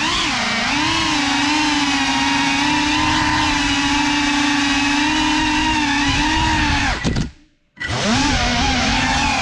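FPV quadcopter's motors and propellers whining, the pitch swinging up and down with the throttle and then holding fairly steady. About seven seconds in, the whine cuts out almost completely for under a second, then comes back.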